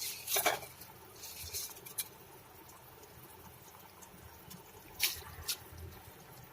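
Soaked rice being added to a pot of boiled water and worked with a spoon: a few scraping, pattering sounds near the start, then two sharp taps of the spoon on the pot about five seconds in.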